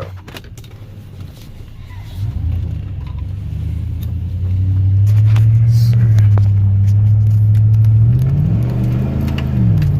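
2005 Chevrolet Silverado's engine pulling the truck away and accelerating, with a freshly installed K&N air filter. It grows louder from about two seconds in. Near the end the pitch climbs and then falls back sharply.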